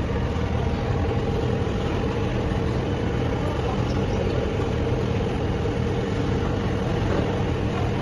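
Steady drone of an idling vehicle engine, with an even hum and low rumble that holds without change.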